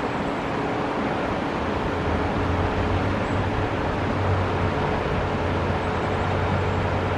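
Truck-mounted boom crane's engine running steadily while hoisting a fishing boat in slings, its low hum growing stronger about two seconds in as the lift goes on.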